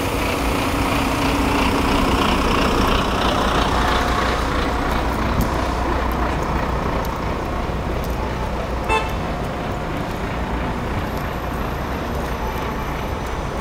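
Steady urban traffic noise, with a brief toot about nine seconds in.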